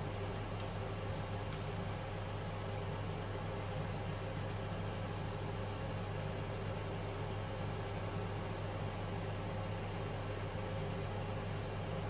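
Steady low hum of a kitchen appliance, with a faint even sizzle from stir-fried udon noodles and vegetables cooking in a frying pan.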